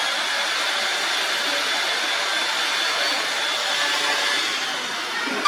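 A power tool running steadily, an even rushing noise with a faint high whine.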